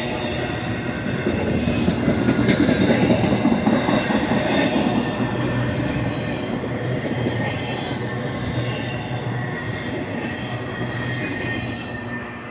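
Intermodal freight cars rolling past on the rails: a steady rumble of steel wheels with thin high squeals, dropping off near the end as the last cars go by.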